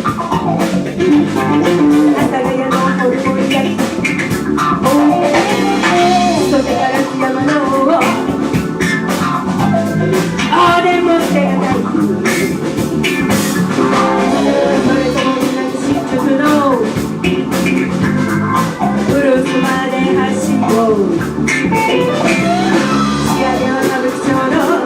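A blues band playing a funk number: guitar and a steady rhythm section under a lead melody line that bends in pitch.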